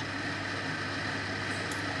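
Steady hum and hiss of a small motor running, with one light tap of cutlery on the frying pan near the end.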